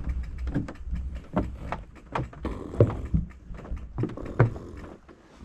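Loose wooden boardwalk planks knocking and clattering irregularly under a fat bike's tyres as it rolls over them, with a low rumble underneath; the boards are unstable and in need of repair.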